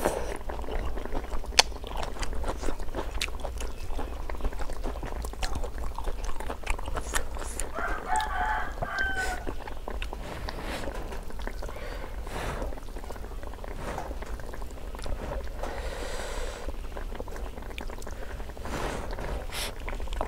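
Close-up eating sounds: noodles being slurped and chewed, with sharp wet smacks and clicks. A rooster crows once about eight seconds in.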